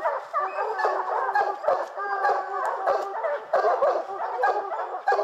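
A pack of bear hounds barking and baying together, many voices overlapping with no break, at a black bear they have treed.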